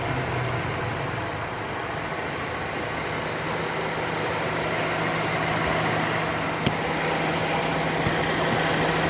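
2014 Mazda Demio (Mazda 2) engine idling steadily, running without the rattle from its accessory-belt tensioner, which has just been replaced. A single sharp click comes about two-thirds of the way through.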